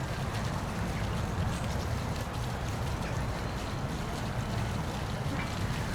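Steady rushing of a waterfall: an unbroken noise that is heaviest in the low end.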